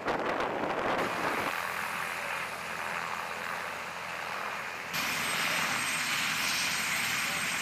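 AH-1 Cobra-type attack helicopter running on the ground close by, with its turbine whine and the noise of its turning rotors. The sound shifts abruptly about a second and a half in and again about five seconds in.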